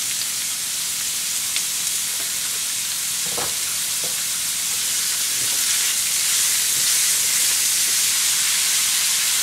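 Chopped red onions sizzling in hot oil in a stainless steel pan, a steady hiss that grows a little louder in the second half as a wooden spatula stirs them.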